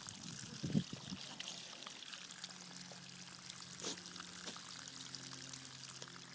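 Water running and splashing from a garden hose, a steady trickling pour, with a short thump just under a second in and a faint steady low hum underneath from about a second in.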